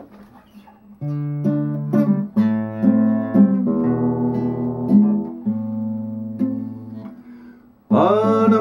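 Nylon-string classical guitar playing a song intro: picked and strummed chords start about a second in and die away near the end, when a man's singing voice comes in.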